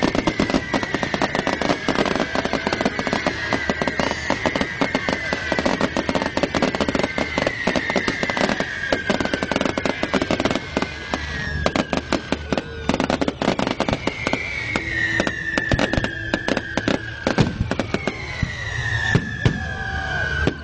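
Fireworks crackling densely, with shrill whistles that keep sliding down in pitch.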